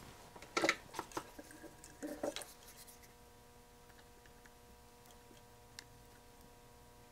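Hands handling a soldering iron, solder and a circuit board clamped in a vise: a few short clicks and rustles in the first two and a half seconds, then only a faint steady hum while the joints are soldered.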